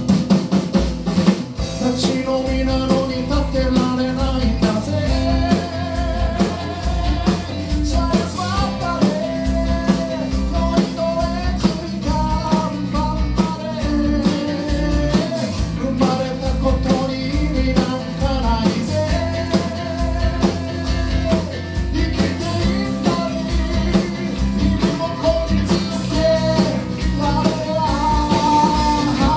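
A live band playing: a man singing lead over acoustic guitars, electric guitar, bass guitar and a drum kit keeping a steady beat.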